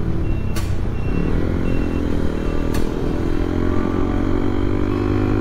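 Motorcycle engine running under way, its pitch dipping and then climbing in the first second before holding steady, over heavy low road and wind rumble. A short high beep repeats about every two-thirds of a second during the first half, and two sharp clicks come about half a second in and near the middle.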